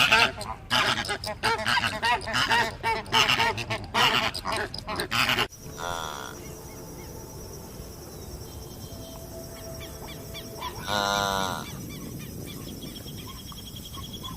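A flock of waterfowl honking and calling loudly over one another. After an abrupt cut about five seconds in, a quieter scene follows with only a couple of short animal calls.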